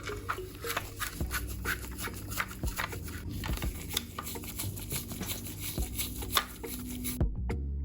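Many quick, irregular small clicks and taps of hands working on a scale model car, over a low steady hum; they stop abruptly about seven seconds in.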